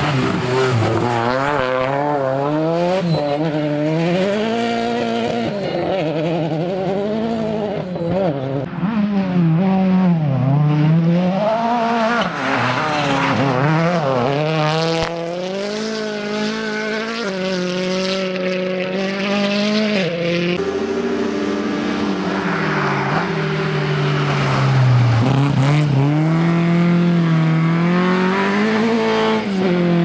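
Rally cars at full stage speed passing one after another, their engines revving hard and dropping back as they shift gear and lift for corners, the pitch rising and falling again and again.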